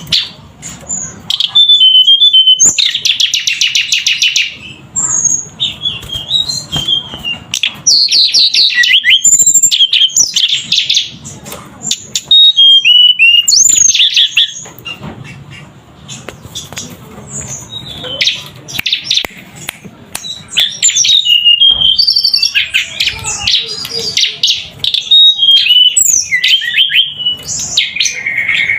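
Hill blue flycatcher (tledekan gunung) singing at full song: long runs of high, varied, whistled phrases and rapid trills, sung in bursts of a few seconds with short pauses.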